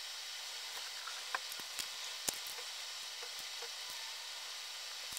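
Faint steady hiss with a few light ticks and taps, mostly in the first half: pen and paper handling while someone writes at a desk.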